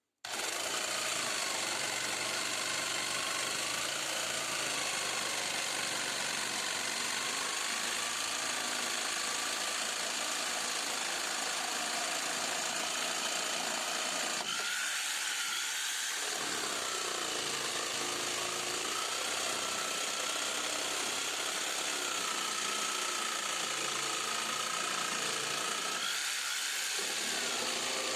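Electric power tool running continuously, its motor whine wavering up and down in pitch.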